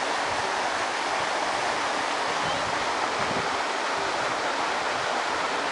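A steady rushing noise, even throughout, with no distinct sounds standing out from it.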